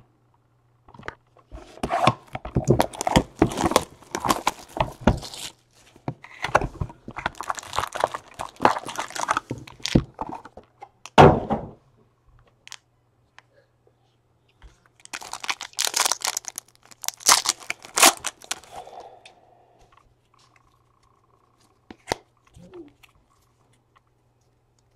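Panini Elite Draft football card box and foil packs being torn open by hand: several bursts of tearing and crinkling wrapper, with a single thud about eleven seconds in and a click near the end.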